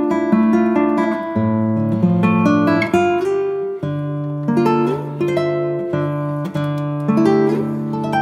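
Background music played on a plucked and strummed acoustic guitar, a steady run of picked notes over a bass line.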